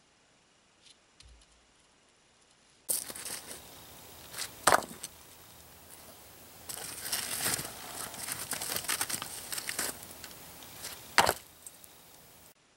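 Near silence for about three seconds, then gloved hands setting rounded stones into a bed of charcoal and ash. Gritty scraping and crunching of the charcoal is broken by sharp clacks of stone on stone, the loudest nearly five seconds and about eleven seconds in.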